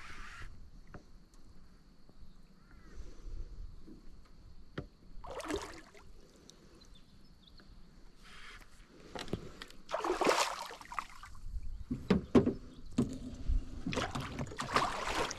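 Water splashing and sloshing in short bursts beside a small aluminium boat, with a few sharp knocks, as a hooked barramundi is brought in.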